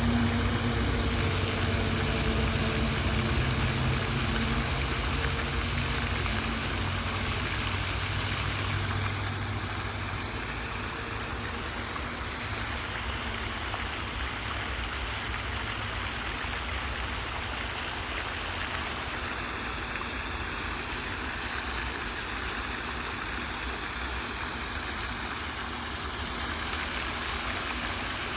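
Fountain water splashing into a pond as a steady rush. A low motor hum underneath fades out over the first ten seconds or so.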